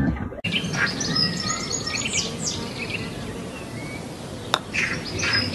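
Small birds chirping over a steady outdoor hiss, with one sharp click of a putter striking a golf ball about four and a half seconds in.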